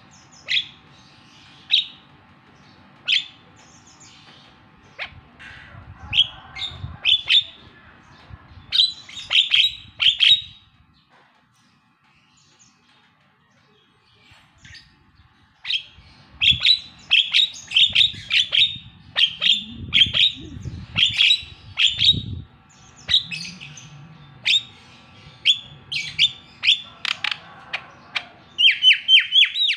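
Javan myna (jalak kebo) calling: sharp, clipped notes in quick bursts, with a lull of a few seconds in the middle and a fast run of five or so notes near the end.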